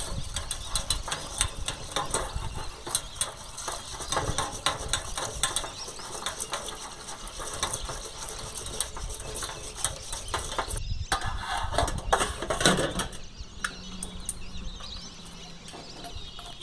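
Tap water running and splashing into a steel mesh strainer of moong dal as it is washed, with quick clicks and clinks of the strainer against the steel basin. About 11 seconds in the sound breaks off, and after that it is quieter as the dal drains.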